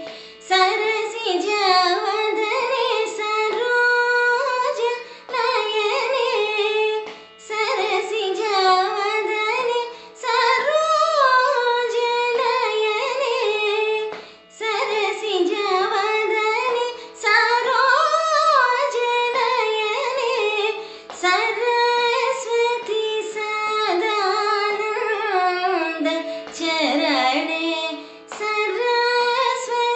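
A woman singing a Carnatic kriti in raga Dharmavati, her voice gliding and ornamenting notes in phrases broken by short pauses for breath, over a steady drone.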